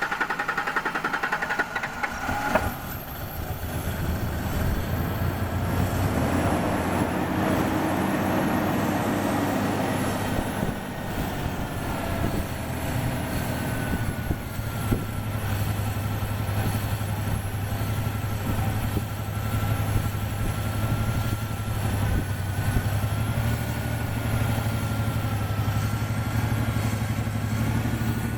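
1993 Ford Ranger engine cranking on the starter for about two seconds, then catching and running steadily, with one rise and fall in engine speed around eight seconds in. It is running with only the upper intake manifold gasket replaced, a repair the owner found did not cure the rough idle.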